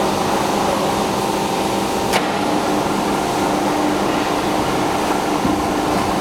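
Four-roll plate bending machine running: a steady mechanical hum from its drive with a few held tones, and one sharp click about two seconds in.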